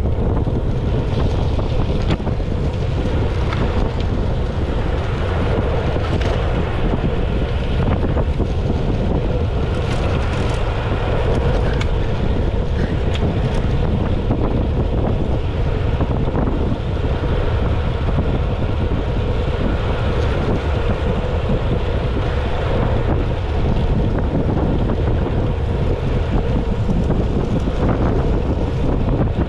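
Steady wind buffeting the microphone, a loud, even low rumble with no clear events.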